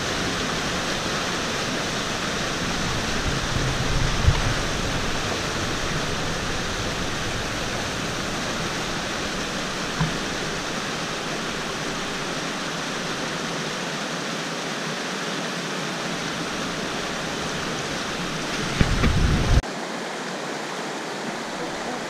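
Fast mountain river rushing over rocks through whitewater rapids: a steady, full rushing-water noise. There are brief low thumps about four seconds in and again near the end.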